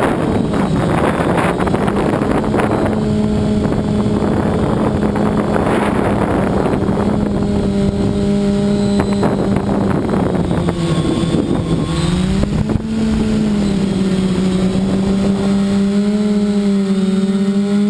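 A 580 mm multirotor drone's motors and propellers humming steadily. The pitch dips briefly about twelve seconds in and then rises again. Gusty wind rushes over the microphone in the first few seconds.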